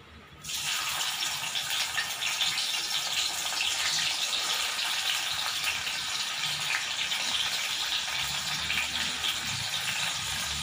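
Salted bitter gourd pieces deep-frying in hot coconut oil in a kadai: the oil starts sizzling suddenly about half a second in as the pieces go in, then keeps up a steady, dense crackling sizzle.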